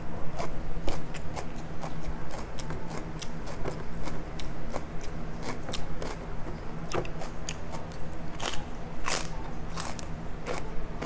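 Close-up crunching and chewing of a raw celery stick: many crisp crunches, the loudest about eight to nine seconds in.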